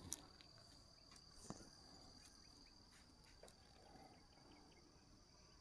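Near silence: a faint, steady, high-pitched drone of crickets, with a soft click right at the start and another about a second and a half in.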